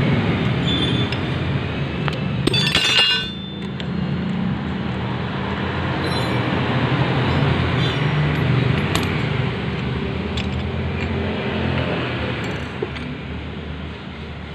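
Metal tools and parts clinking as the nut on a Yamaha Mio scooter's CVT clutch is undone and the clutch and pulley assembly is worked off its shaft. There is one louder metallic clatter about two and a half seconds in, a few light clinks later, and a steady low engine hum underneath throughout.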